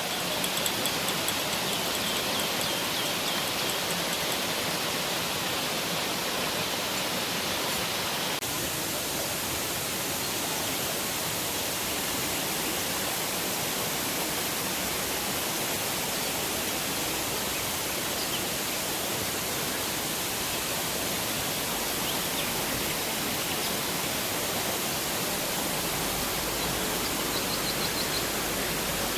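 Saidabat Waterfall's water rushing steadily, its sound shifting slightly about eight seconds in, with a few faint high chirps over it at the start and near the end.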